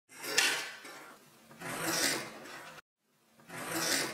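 Scissors cutting through knit fabric: three long cutting strokes, each swelling and fading, with the second one breaking off abruptly.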